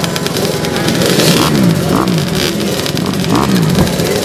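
Off-road motocross bike engine warming up, blipped several times so its pitch rises and falls in quick sweeps.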